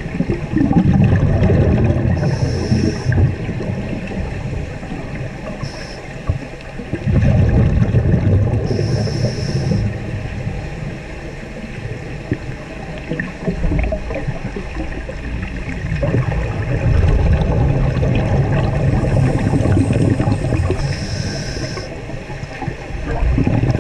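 Scuba diver breathing through a regulator, heard underwater: long low bubbling rumbles of exhaled air that swell and fade three times, with a few short hisses from the regulator in between.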